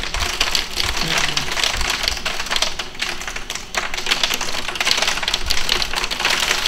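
Hail and rain hitting a window pane: a dense, irregular rapid ticking with no let-up.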